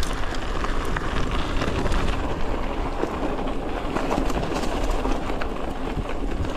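2022 Polygon Syncline C2 carbon hardtail mountain bike rolling fast downhill over a dirt and gravel trail: a steady rush of tyre noise and wind on the microphone, with scattered clicks and rattles from the bumps.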